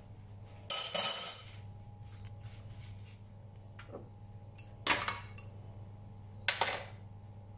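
Glass bowls and a utensil knocking and clinking on the counter as the bowls are handled: a longer scrape about a second in, then two short knocks, the first as a glass bowl is set down on the cutting board.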